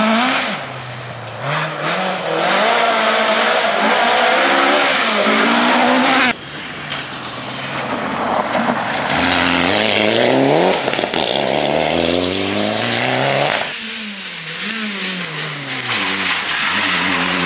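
Rally cars passing one after another at full effort, engines revving hard and dropping back with each gear change. It comes as three passes joined by abrupt cuts, about six seconds and about thirteen and a half seconds in. The first pass is a Ford Escort Mk2 and the last a Honda Civic.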